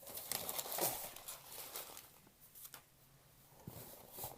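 Handling noise from a packaged DVD box set being picked up and moved: rustles and light taps, busiest in the first second or so, then a few scattered taps.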